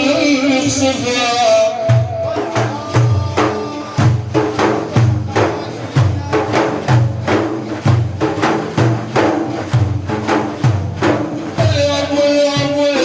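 Religious praise song (madih): a man's voice finishes a sung line, then an instrumental passage carried by a steady rhythm of hand-drum strokes, and the singing comes back near the end.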